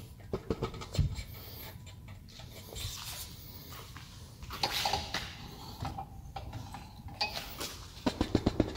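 Handling sounds from a hand pressing taut screen-printing mesh on a screen stretcher: scattered light knocks and rustles, with a heavier thump about a second in. Near the end, a quick, even run of light taps.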